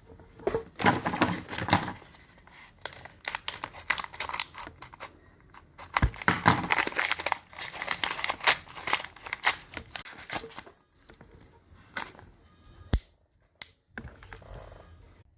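Plastic blind-bag packaging crinkled and torn open by hand in irregular bursts of rustling, followed by a few sharp clicks near the end.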